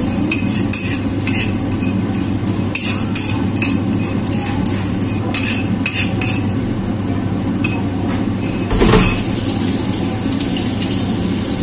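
Utensil clinking against a dish in quick repeated taps, stirring pancake batter, for about the first six seconds; a single dull knock about nine seconds in. A steady low hum runs underneath.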